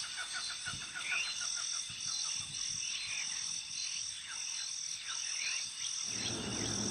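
Forest ambience: insects keep up a steady high shrill drone that swells about twice a second, while a small animal gives a quick run of chirps in the first second and then single chirps about once a second.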